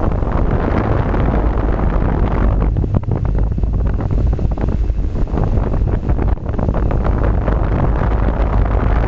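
Steady wind buffeting the microphone of a camera carried on a Blade 450QX quadcopter, with a low hum beneath it from the drone's motors and propellers.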